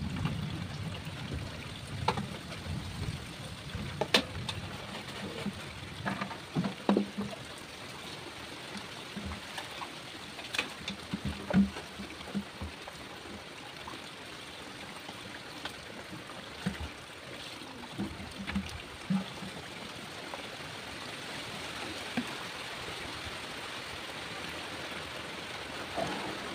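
Water running steadily from hoses into a steel basin, with scattered splashes and knocks as a plastic dipper scoops water out of the basin.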